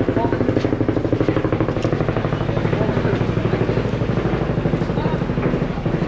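Passenger boat's engine running steadily with a rapid, even pulse.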